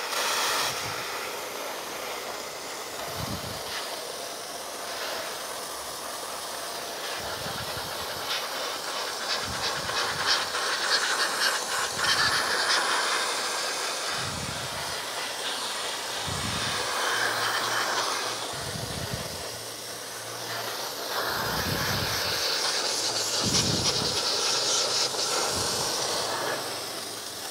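Dry ice blaster running at 30 PSI on plastic grille trim: a continuous hiss of compressed air and ice pellets that swells and eases as the nozzle moves.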